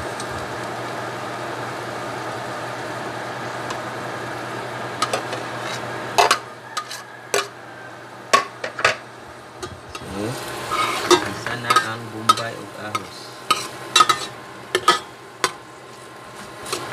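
Chopped onion and garlic sautéing in oil in a stainless steel pot, sizzling, with a steady hiss for the first six seconds. From about six seconds in, a metal spatula clinks and scrapes against the pot in quick irregular strokes as the aromatics are stirred.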